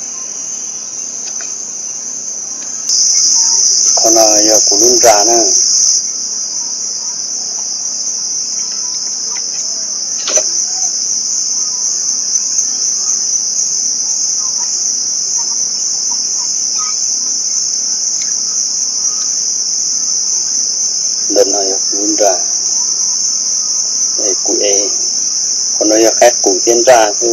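Loud, steady chorus of insects, one continuous high buzz, louder for a few seconds near the start. Short pitched calls break in about 4 seconds in and several more from about 21 seconds on.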